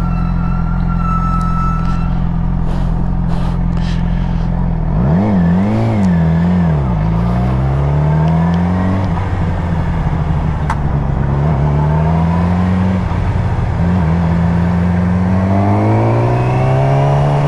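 Yamaha R6's inline-four engine idling steadily at a stop, then revving and pulling away. It accelerates up through the gears, its pitch rising in several climbs with a drop at each shift.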